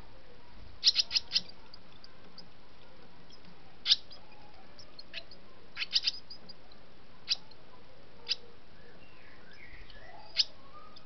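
Swallows calling at the nest: short, high chirps, a quick run of four about a second in, then single chirps or little clusters every second or two.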